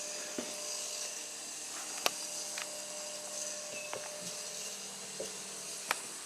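Washing machine running in a small camper: a steady motor hum with a faint whine. A few sharp clicks sound through it, one about two seconds in being the loudest.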